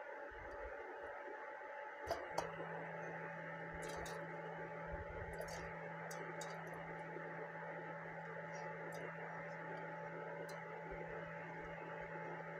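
Faint clicks and taps as roasted tomatoes, red chillies, garlic and cashews slide off a plate into a steel mixer jar, the two loudest about two seconds in. A steady low hum starts at about the same moment and runs on underneath.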